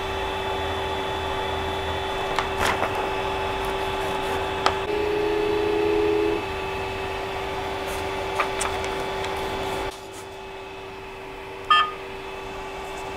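3D printer humming steadily from its fans and stepper motors, with a louder whine for about a second and a half near the middle as the print head moves to a levelling point. A few light clicks, then the hum drops away about ten seconds in, and the touchscreen gives a short beep near the end.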